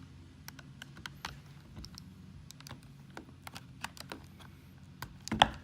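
Scattered light clicks and taps of a tool prying at the small plastic cable door on a Toyota 4Runner door lock actuator, with a louder clack near the end.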